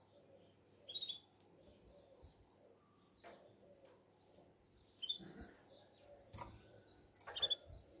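Caged canary giving a few short chirps: one about a second in, one around five seconds and a quick pair near the end. Soft clicks and rustles come between them.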